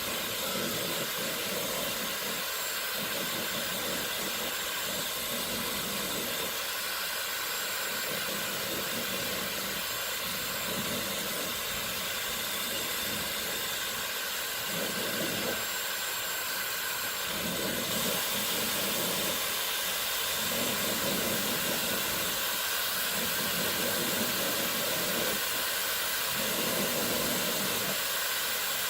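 Dyson Supersonic hair dryer running on a powerful, hot setting: a steady rush of air with a faint high whine. The lower part of the rush swells and fades every second or two.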